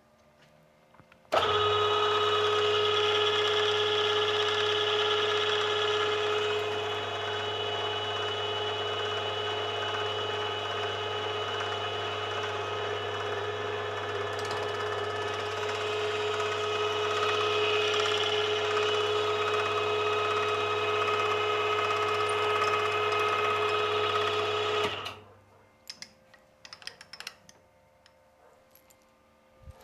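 SGS-612 surface grinder's spindle motor and grinding wheel switched on about a second in, running with a steady whine over a low hum, then switched off near the end, followed by a few light clicks.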